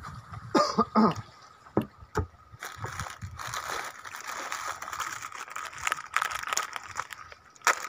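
Spinning reel being cranked to retrieve a cast lure: a steady whirring starts about two and a half seconds in, after a few sharp knocks and clicks near the start.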